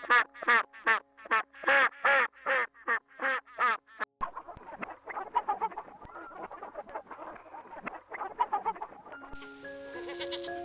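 Poultry calling in a rapid run of loud, short calls, about three a second, over background music with long held notes. After an abrupt cut about four seconds in, the calls go on fainter and scattered, and the music grows fuller near the end.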